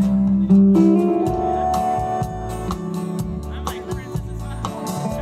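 Live band playing an instrumental passage of a song, with sustained notes over a steady beat and no singing.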